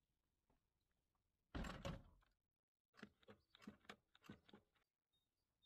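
Faint handling noises of a tow-bar bike carrier: a single clunk about a second and a half in, then a quick run of clicks as the ratchet strap is pulled tight around the bike's wheel.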